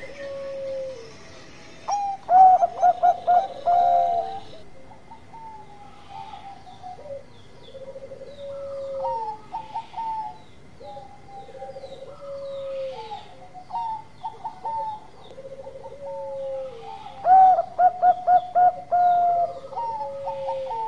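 Zebra dove (perkutut) cooing: a loud phrase of rapid staccato notes ending in a drawn-out falling coo, about two seconds in and again near the end, with quieter coo phrases repeating in between.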